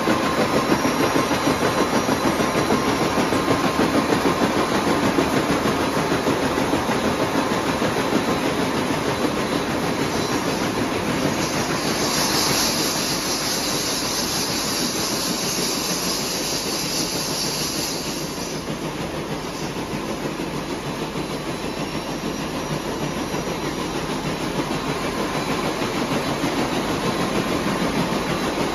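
Circular copper-wire braiding machines running, their bobbin carriers circling with a fast, steady clatter. A hiss joins in about twelve seconds in and stops around eighteen seconds.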